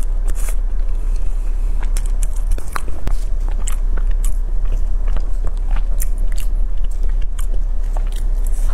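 Close-miked eating sounds: chewing with many small wet mouth clicks, then a bite into a tart's pastry shell near the end. A steady low hum runs underneath.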